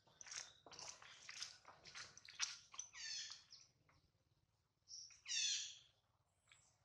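Infant long-tailed macaque crying: a run of short high squeaks, then two longer shrill cries about two seconds apart. These are the distress calls of a hungry baby separated from its mother.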